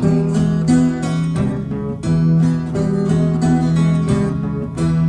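Acoustic blues guitar strummed in a steady, even rhythm over held low notes: an instrumental break between sung verses.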